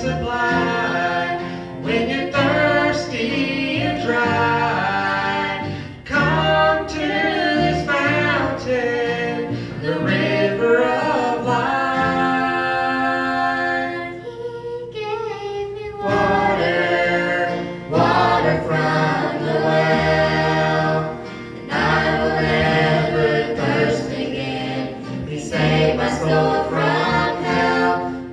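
Gospel song sung by several voices in close harmony over a steady bass, with a long held chord about halfway through.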